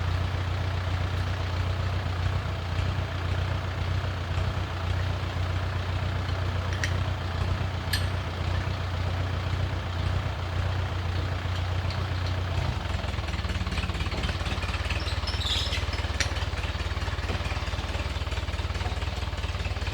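A heavy engine running steadily with a low hum, its note changing about two-thirds of the way through, with a few faint knocks.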